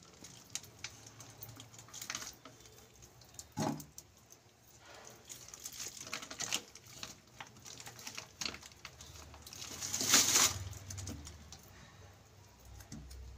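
Solid ghee being spooned into an empty non-stick kadhai: scattered light clicks and taps of the spoon against the pan, with a short louder scrape about ten seconds in.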